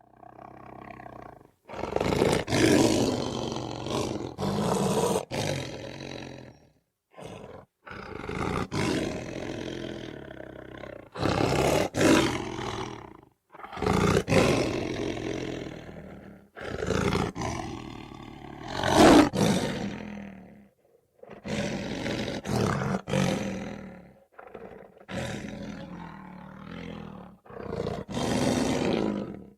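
A string of separate animal roars, about a dozen, played one after another. Each lasts one to four seconds, with short gaps between them, and the loudest comes about two-thirds of the way through.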